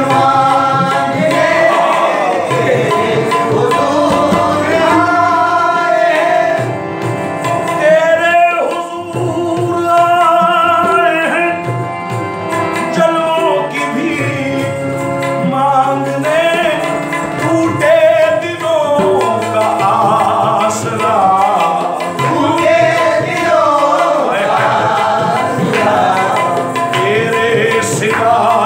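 Qawwali: a male lead voice singing melismatic lines over a harmonium, with tabla drumming underneath.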